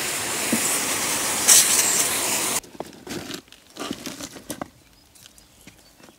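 Hose spraying water onto a downhill mountain bike being washed, a loud steady hiss that cuts off suddenly about two and a half seconds in. After it, quiet with a few faint scattered clicks and knocks.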